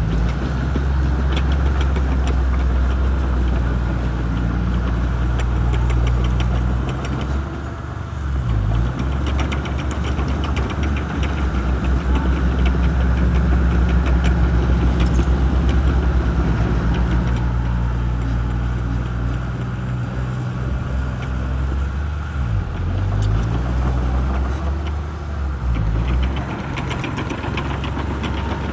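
Shantui crawler bulldozer's diesel engine running under load while pushing brush, its note dipping and recovering a few times. A fine, rapid clatter runs over the engine.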